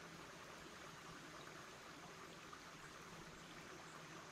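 Faint steady hiss with light crackling from beef sausages cooking on a clay pan over a wood fire.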